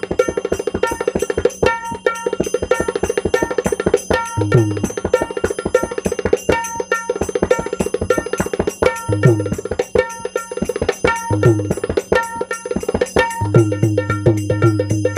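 A Damodardas Govardhandas dholki (Marathi barrel drum) played by hand in a fast rhythm: ringing treble-head strokes over deep bass-head booms whose pitch drops after the stroke, recurring every few seconds.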